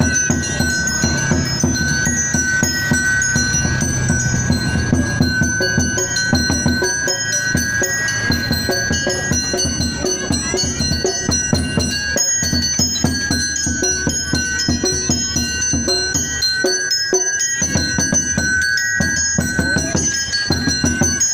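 Music with metallic mallet percussion and a dense, steady drum beat over a held high tone.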